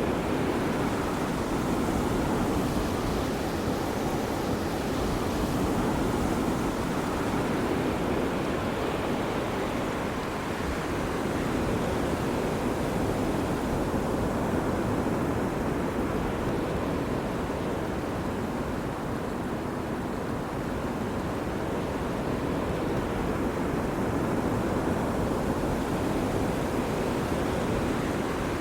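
Ocean waves breaking and washing up a beach, a steady surf hiss that swells and eases slowly every few seconds.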